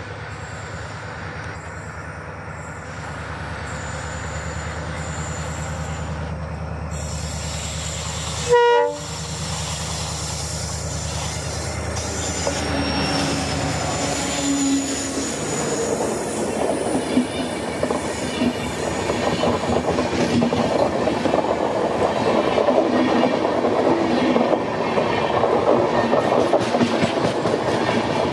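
WDP4D diesel locomotive running with a steady low engine hum as it approaches, then one short, loud horn blast about nine seconds in. After that the train rolls past, with a rising clatter of clickety-clack from wheels over the rail joints and brief wheel squeal.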